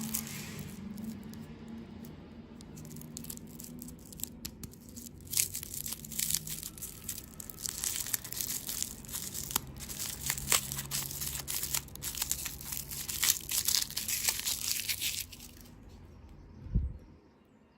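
Close-miked ASMR handling of candy and desserts: dense crinkling and crackling, heaviest from about five to fifteen seconds in, with a single low thump near the end.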